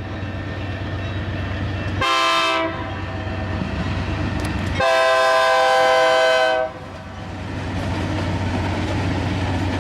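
BNSF diesel freight locomotive's air horn sounding a short blast and then a long one, the close of the grade-crossing signal, over the steady rumble of the locomotives' diesel engines. The engine and rolling noise grows louder near the end as the train draws closer.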